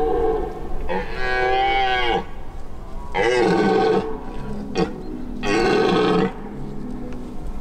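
Red deer stag roaring in the rut: three deep, drawn-out roars a couple of seconds apart, the first the longest.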